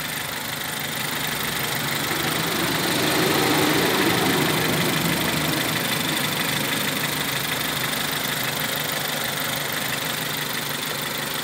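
Renault 16-valve four-cylinder petrol engine idling steadily, briefly a little louder about three to four seconds in. The sound is clean, with no knocks, that of a freshly fitted engine running well.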